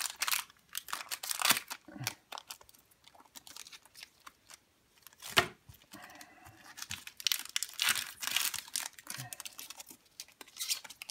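Foil Pokémon booster pack wrapper crinkling and tearing as it is opened by hand: irregular crackles, with a quieter stretch in the middle and one sharp, loud crackle about five seconds in.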